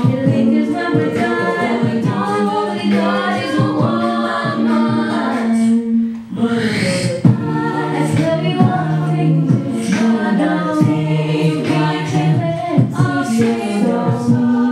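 All-female a cappella group singing: a lead voice over sustained backing harmonies and a sung bass line, with vocal percussion beats throughout. About six seconds in the sound briefly drops, then a breathy rising whoosh comes in before the groove resumes.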